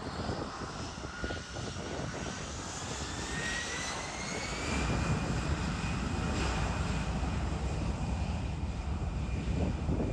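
Boeing 787-9 turbofan engines spooling up on the runway: a whine that rises in pitch over a few seconds and then holds steady, with a low engine rumble growing louder about halfway through.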